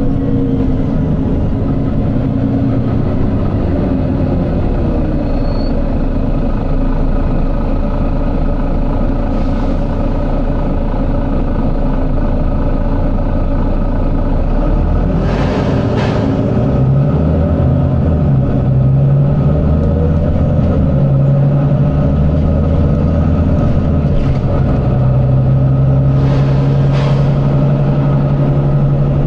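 Volvo B9TL double-decker bus's 9.4-litre six-cylinder diesel engine running hard, its revs rising and falling through the second half. Short air hisses break in, the loudest about halfway through.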